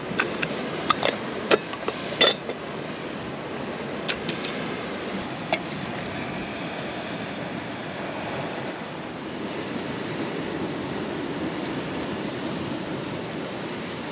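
Sharp metal clinks of a stainless camping kettle and stove pot being handled, several in the first couple of seconds and two more a few seconds later. Under them is a steady wash of sea waves and wind.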